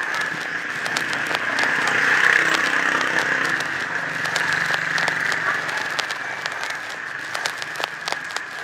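Electric heat gun running steadily as it is played over a laminated vinyl sticker, with scattered light clicks over it.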